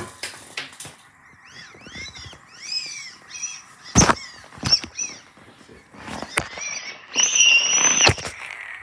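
A young child making high-pitched squeaky vocal noises: a string of short rising-and-falling squeaks, then a longer held squeal about seven seconds in. Sharp knocks and rustles from the phone being handled come in between.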